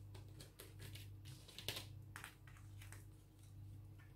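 Faint soft taps and rustles of tarot cards being handled and laid down on a table, a few light clicks scattered through, over a low steady hum.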